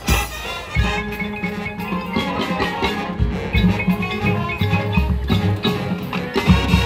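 Marching band playing live, with mallet percussion from the front ensemble over sustained low chords. A sharp hit opens the passage.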